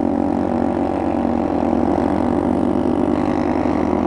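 Motorcycle engine running steadily while riding, with a fast, even pulse.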